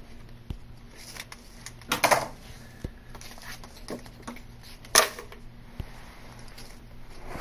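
A strip of peel-and-stick edge banding being cut from the roll and handled: a short scraping rustle about two seconds in, a sharp click about five seconds in, and a few light ticks.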